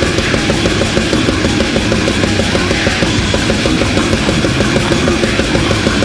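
Brutal death metal: heavily distorted electric guitar and bass played fast over a quick, steady beat, dense and loud throughout.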